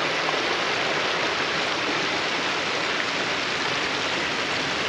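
Water rushing over a low concrete river weir, a steady, even rush.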